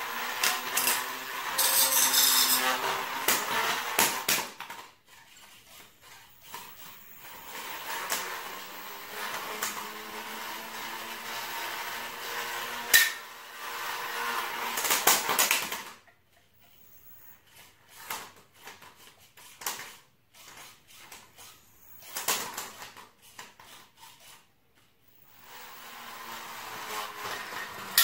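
Fairyweight gyroscopic walking robot: its large vertical spinner weapon whines as it spins up and winds down several times, its pitch rising and falling. Clicks and clattering knocks come as the tilting spinner makes the small robot lurch across the concrete floor.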